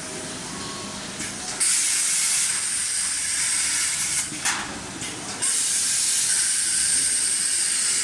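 CNC plasma cutting machine's torch hissing loudly as compressed air and the plasma arc start up. It comes on sharply about a second and a half in, breaks off briefly around the middle, then resumes steadily.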